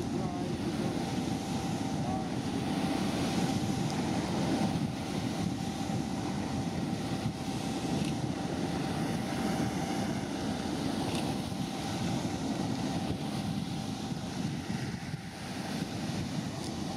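Wind buffeting the microphone over a steady low rumble and the wash of water as a harbour tug and a tanker pass.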